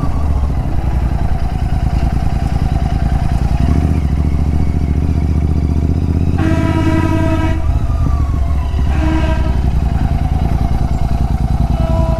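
Royal Enfield Continental GT 650's parallel-twin engine running through a Red Rooster aftermarket exhaust, with a steady, loud pulsing note. A vehicle horn sounds for about a second some six seconds in, then again briefly about nine seconds in.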